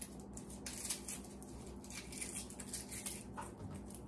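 Dry papery skin of a fresh, tight head of garlic crackling and rustling faintly as fingers peel it and pry cloves apart.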